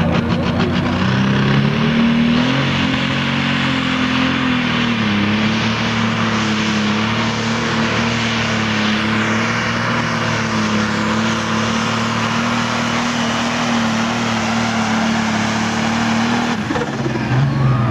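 A John Deere pulling tractor's turbocharged diesel engine runs flat out under load as it drags a weight-transfer sled. The pitch climbs over the first few seconds, then holds steady, and the steady note breaks off shortly before the end.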